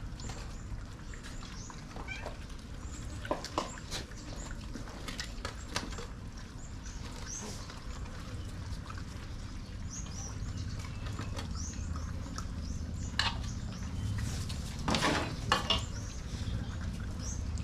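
Dogs feeding: scattered clicks and knocks, thickest near the end, mixed with many short high squeaks.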